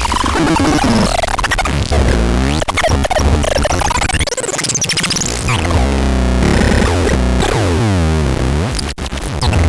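Ultra Sonic X-2060 playing its electronic sound effects: loud, continuous synthesized tones that sweep up and down in pitch, over a pulsing bass.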